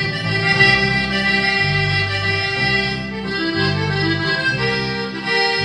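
Instrumental break of a regional Mexican band song. An electric bass plays a line of long low notes under a sustained melody on a reedy lead instrument.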